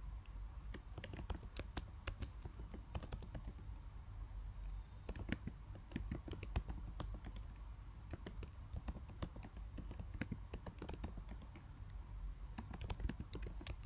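Typing on a computer keyboard: irregular runs of keystroke clicks with short pauses between bursts, as terminal commands are entered.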